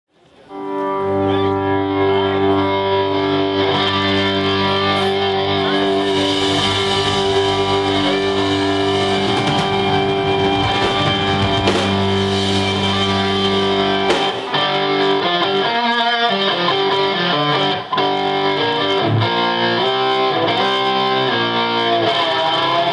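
Live Celtic rock band playing: bagpipes and fiddle over distorted electric guitars, fading in at the start.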